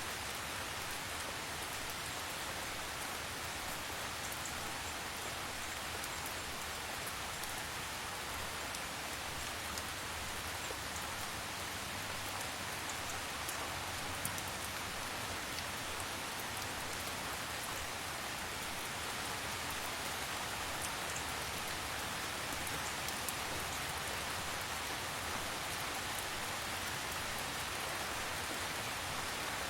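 Steady, gentle rain falling: an even hiss with the small ticks of single drops scattered through it.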